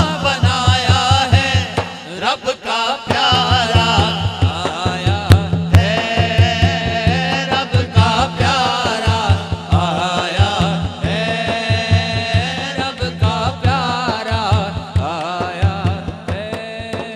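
A man singing a naat into a microphone, his voice wavering and ornamented, over a steady low drone and a fast, even low beat. The singing dips briefly about two seconds in.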